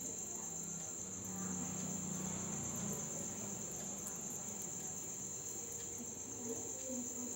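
Crickets chirping in a steady, continuous high-pitched trill.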